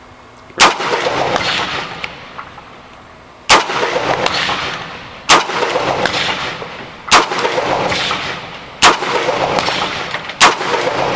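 AR-15 rifle firing .223 PMC Bronze 55-grain rounds: six single shots about one and a half to two seconds apart, each followed by a long echo that lasts over a second.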